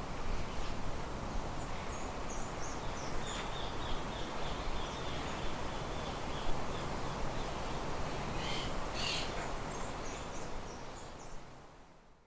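Birds chirping over a steady background noise, with a rapid run of repeated high notes about three seconds in and more chirps later; the sound fades out near the end.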